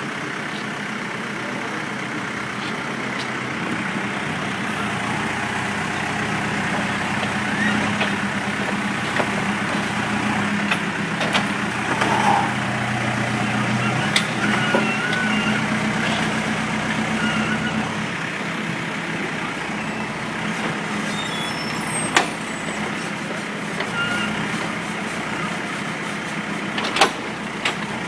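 Diesel engine of a concrete-breaker machine running steadily amid street traffic noise, with two sharp metallic clanks in the last part.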